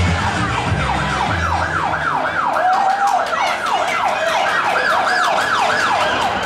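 A siren sound effect yelping up and down about three times a second, played as part of the dance's show music. The music's heavy bass drops out about two and a half seconds in, leaving the siren.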